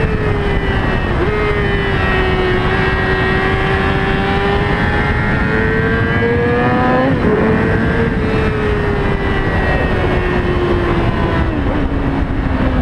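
Yamaha YZF-R6 inline-four sport bike engine running under way, heard mainly as intake noise from a helmet-mounted microphone over a heavy rush of wind. The engine note holds fairly steady with slow rises and falls, changing abruptly about a second in, about seven seconds in and again near the end.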